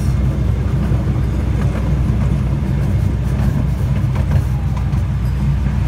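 Steady low rumble of a 12-inch gauge miniature railway train's carriage running along the track, with a few faint clicks, heard from inside an open passenger car.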